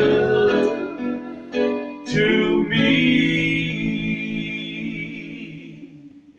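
Three men singing a gospel song in close harmony, ending on a long held chord that fades away over the last few seconds.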